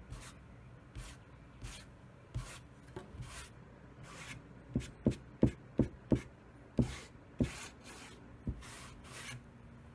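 A rag rubbing paint onto a rough wooden pallet board in repeated swishing strokes, a little more than one a second. About halfway through, a quick run of sharp knocks on the wood rings out louder than the strokes.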